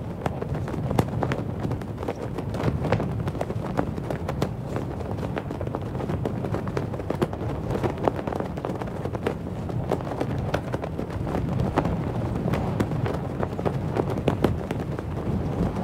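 A cloth flag flapping in strong wind: irregular sharp snaps of the fabric over a steady low wind rumble.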